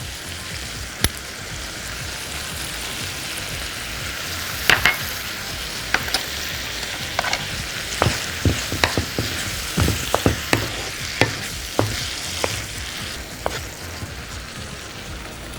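Sausage, tomato and garlic sizzling in oil in a pan over high heat. A spoon stirring them clicks and scrapes against the pan, with the clicks coming often from about five seconds in.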